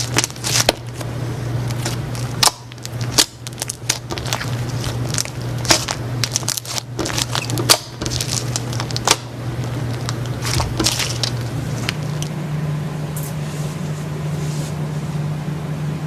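Slime being squeezed and pressed by hand, giving irregular crackling clicks and pops, thinning out in the last few seconds. A steady low hum runs underneath and steps up in pitch about twelve seconds in.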